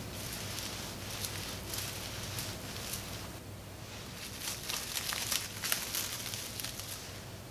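Plastic cling film crinkling and rustling as hands lift and fold it around a slab of dough, with a cluster of sharp crackles a little past the middle.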